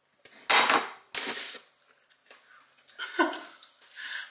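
Brown paper mailing bag rustling and crinkling in two short bursts as items are pulled out of it.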